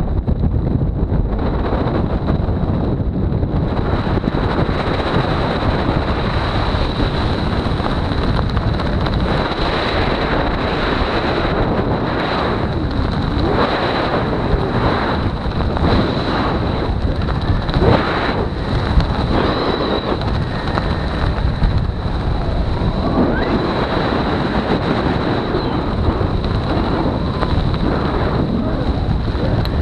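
Wind rushing over the microphone of a camera worn by a parachutist descending under an open canopy: a steady loud blast that swells and gusts, with a thin constant high tone above it.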